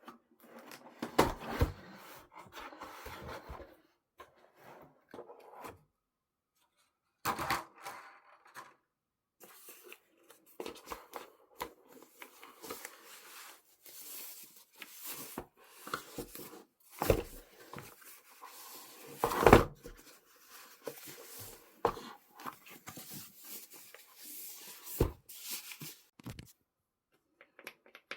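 Packaging being handled and torn open by hand: irregular rustling and tearing with scattered knocks, the loudest knock about two-thirds of the way through, and a couple of short pauses.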